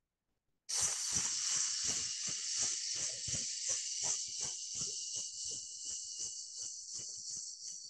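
A long hissing 'sss' breathed out through the mouth, the qigong healing sound for the lungs. It starts about a second in and is held steadily for about seven seconds, fading slightly near the end.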